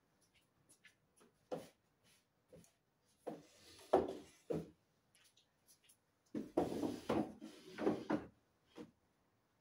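Wooden director's chair being handled and moved on a tile floor: a single wooden knock, then a cluster of knocks and scrapes, then a longer stretch of knocking and scraping in the second half.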